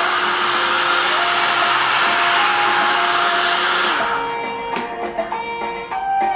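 Hair dryer blowing hot air onto a phone's screen to soften the display adhesive, running steadily until it cuts off about four seconds in. Guitar music plays underneath and carries on after.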